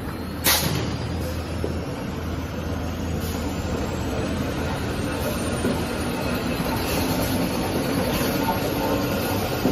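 Kitchen-towel paper rewinding production line running: a steady mechanical rumble and clatter of rollers and drives, with a sharp clack about half a second in and a faint high whine slowly rising in pitch.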